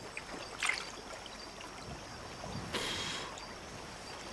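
Water splashing and lapping around a swimmer pushing floating gear through a lagoon, with two brief louder splashes, one under a second in and one near three seconds.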